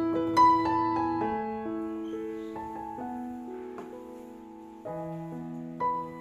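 Slow piano music, with sustained notes ringing into one another and a new chord about five seconds in.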